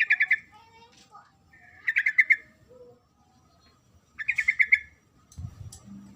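Yellow-vented bulbul (trucukan) calling: a quick run of six or so bubbling notes, repeated three times about two seconds apart, with softer chatter between. It is the female's call to a male. A low rumble comes in near the end.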